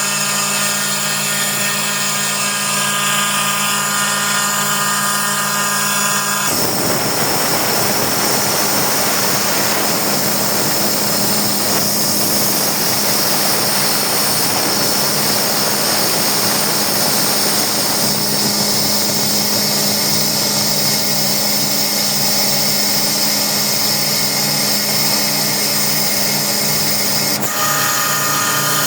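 Airhorse AHB20A oil-flooded rotary screw air compressor running after its 4000-hour service, a steady motor hum with even tones. About six seconds in a loud rush of air joins it, and it cuts off about a second before the end, leaving the steady hum again.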